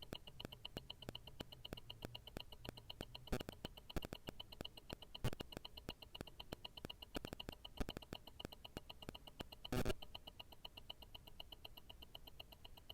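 Tourbillon watch movement from an Invicta Grand Octane ticking through a stethoscope: a fast, even run of escapement ticks, several a second. A few louder knocks break in about a quarter, two-fifths and three-quarters of the way through.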